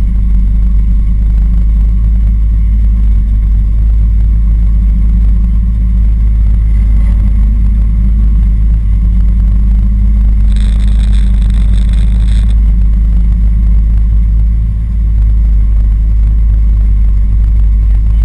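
A race car's engine running steadily close by, mostly a heavy low rumble with no clear revving. A brief high tone sounds for about two seconds midway.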